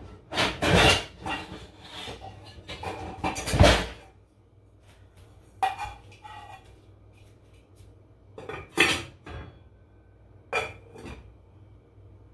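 Pots, pans and a glass pot lid being handled on a kitchen counter and stove: a busy clatter of knocks and scrapes for about four seconds, then three separate clinks a couple of seconds apart.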